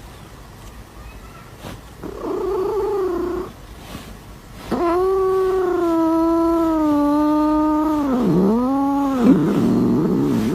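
A cat yowling: a short call about two seconds in, then a long drawn-out yowl held for over three seconds, which dips and ends in a shorter call.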